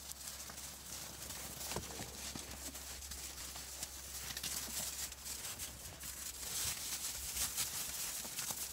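Alaskan Klee Kai trotting and scrabbling about on crusty snow: an irregular crunching patter of paws, over a steady low hum.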